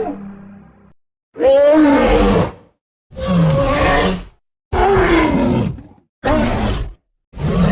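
Cartoon dinosaur vocal sound effect: a series of separate roaring, groaning calls about a second each. The calls are pitched and bend up and down. There are four calls with short gaps between them, and another begins near the end.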